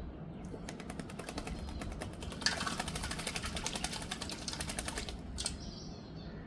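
Myna bathing, fluttering its wings in shallow water: a rapid patter of small splashes that starts about a second in, grows denser and louder about two and a half seconds in, and stops near the end.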